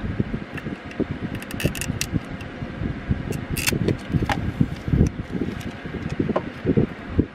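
Hands handling a stainless steel Thermos can holder, with crinkling and a few sharp clicks as its paper label is peeled off, over an irregular low rumble of wind noise.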